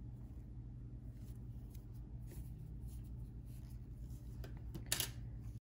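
Faint scratching and light clicks of knitting needles and yarn as stitches are purled, over a low steady hum. There is a sharper click near the end, then the sound cuts off abruptly.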